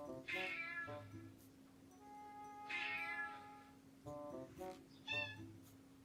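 Three high cat meows over background music with a repeating melody of short notes: a long meow near the start, a longer one in the middle and a short one near the end.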